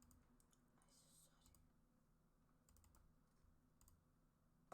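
Near silence, with faint, scattered clicks and taps of someone working at a computer.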